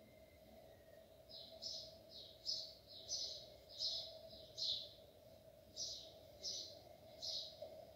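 Mechanical pencil scratching short strokes on paper, a run of brief scratches about one or two a second starting about a second in, over a faint steady hum.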